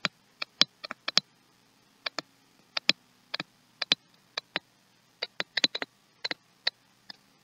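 Stylus tip tapping and clicking on a tablet screen during handwriting: a quick, irregular series of sharp ticks, often in close pairs, as strokes of letters are put down and lifted.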